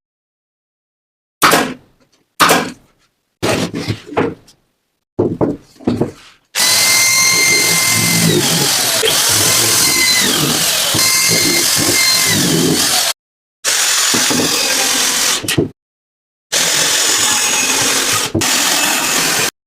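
Power drill running: several short bursts, then three long stretches of steady running with a whining motor tone that dips and rises in pitch. Each stretch stops abruptly.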